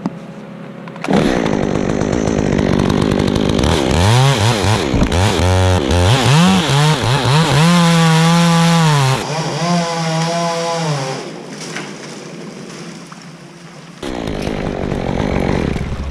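Two-stroke chainsaw cutting through a tree trunk: it revs up about a second in, and its pitch rises and dips as it bites into the wood, then it drops back after about ten seconds.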